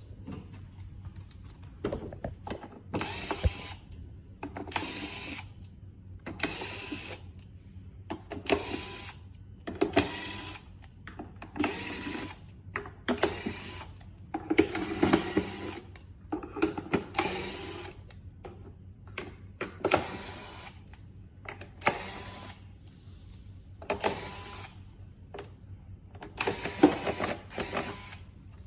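A small motor running in repeated short bursts, about one every one to two seconds, with a faint whine in each.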